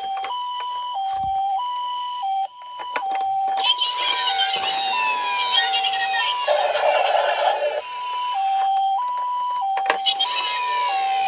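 Two-tone hi-lo ambulance siren, alternating between a higher and a lower note about every half second. Sharp clicks and clatter of small die-cast toy cars are mixed in.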